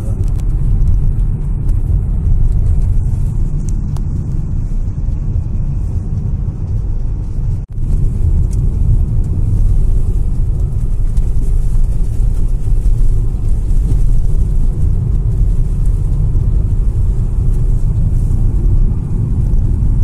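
Steady low rumble of road and engine noise inside a moving car's cabin. It drops out briefly about eight seconds in.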